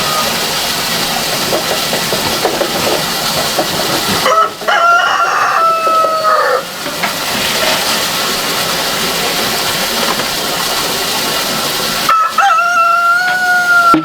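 A rooster crowing twice, each crow about two seconds long, the first a third of the way in and the second near the end, over a steady hiss.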